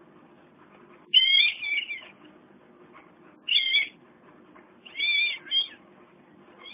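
A kitten mewing: three high-pitched cries, each under a second long, the first about a second in and the loudest.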